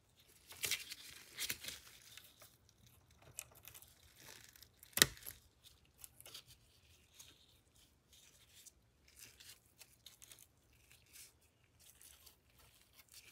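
Faint rustling and small clicks of gloved hands working the old wiring at a radio's dial-lamp socket, with one sharp click about five seconds in.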